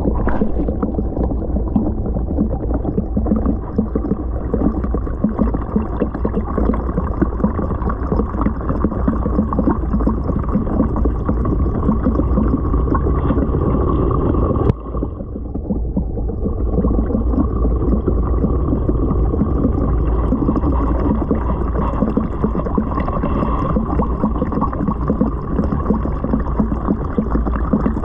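Steady gurgling and rushing of aquarium water, heard through a camera submerged in the tank. The noise drops away suddenly for about a second and a half near the middle, then returns.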